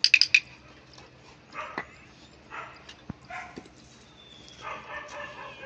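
Labrador retriever barking: a quick run of three or four short, high barks right at the start, followed by a few fainter vocal sounds.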